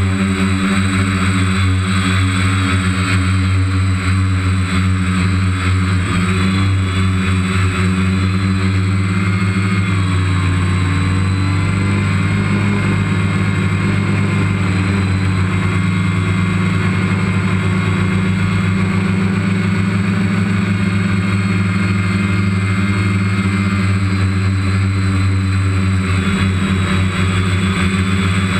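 Multirotor drone's motors and propellers heard from its own onboard camera: a loud, steady buzzing hum with whining tones that drift up and down in pitch as it manoeuvres.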